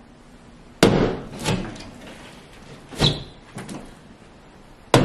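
Sledgehammer smashing into a drywall wall: three sharp blows about two seconds apart, each followed by a smaller knock of breaking board.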